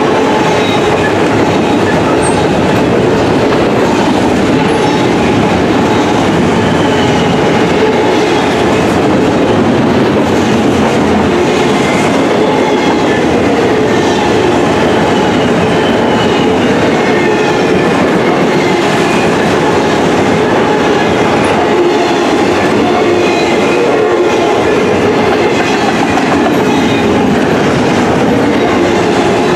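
Double-stack intermodal well cars of a freight train rolling past close by: a steady, loud noise of steel wheels running on the rails, with brief high squeals here and there.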